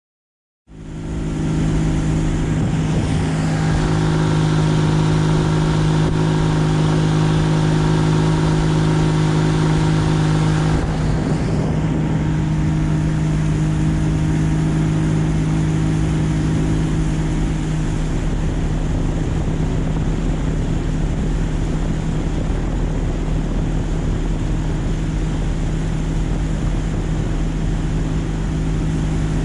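Boat's freshly rebuilt outboard motor running steadily at speed, a loud, even engine tone. Its pitch and upper tones shift slightly about eleven seconds in.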